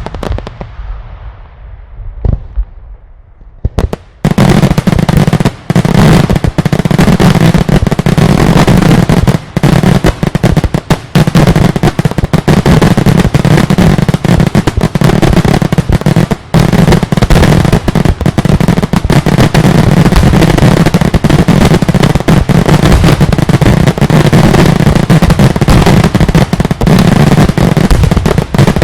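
Daylight fireworks: one loud bang ringing out and a second about two seconds in, then from about four seconds in a dense, continuous barrage of rapid explosions with no let-up, extremely loud.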